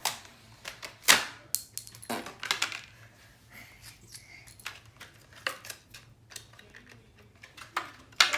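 A toy's box being opened by hand: irregular clicks, snaps and crinkly scrapes of packaging, with a sharp snap about a second in.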